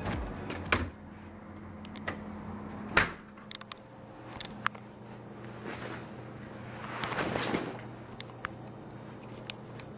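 Quiet hotel-room tone with a steady low hum, broken by a few sharp clicks and knocks, the loudest about three seconds in, and a brief rustling swell around seven seconds. Background music fades out in the first second.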